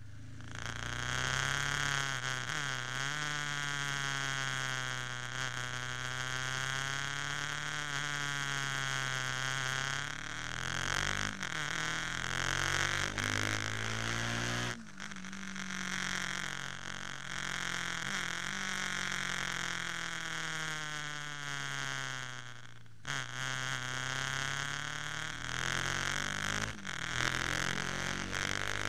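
Ducati 998's 90-degree V-twin engine heard onboard while riding, the revs rising and falling repeatedly with a few sudden drops, over a steady rush of wind noise.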